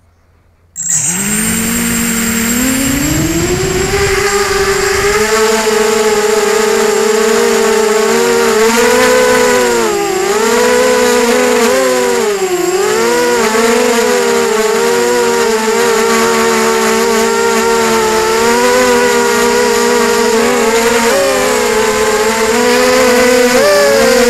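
Radio-controlled drone's motors and propellers, heard from the camera on board: they start suddenly about a second in and rise in pitch over the next few seconds as it lifts off, then run as a steady whine whose pitch wavers up and down with the throttle.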